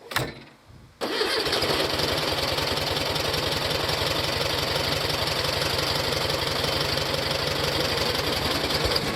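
An engine running steadily with a fast, even pulsing, cutting in abruptly about a second in.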